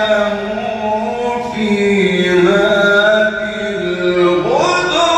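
A man's voice chanting Quranic recitation in the melodic tajwid style, with long held notes that waver and slide in pitch. A new phrase begins near the end.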